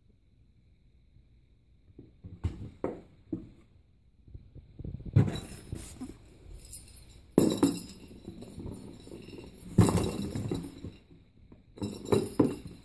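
Kittens scrabbling and batting toys around inside a cardboard box: a series of separate bursts of scratching and knocking on the cardboard, with a bright clinking rattle from the toys.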